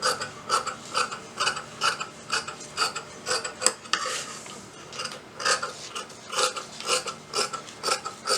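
Metal scissors snipping through blouse fabric in a steady run of short cuts, about two to three a second, with a brief pause and a rustle of cloth about four seconds in.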